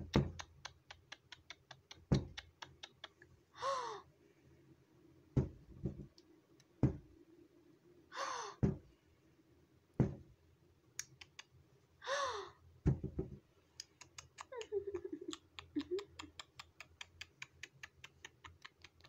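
Fingers tapping and knocking on a TV screen close to the microphone: rapid clicking with a dozen or so heavier thumps. Three short sounds falling in pitch come about four seconds apart, with a weaker fourth near the end.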